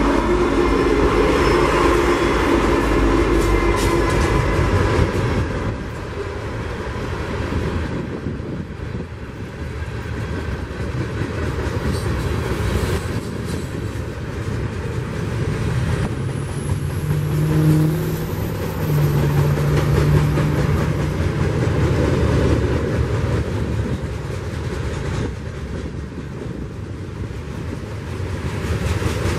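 A freight train passing: the trailing CN diesel locomotives' engines go by in the first few seconds, then loaded ballast hopper cars roll past with a steady rumble of steel wheels on the rails.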